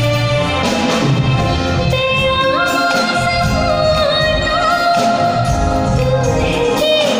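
A female vocalist singing a Bengali song with a live band of drums, keyboard and electric guitars, holding long notes with slides in pitch.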